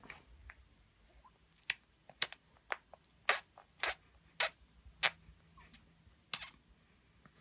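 Baby's mouth smacking and clicking while tasting a lemon: about eight sharp wet clicks, roughly one every half second.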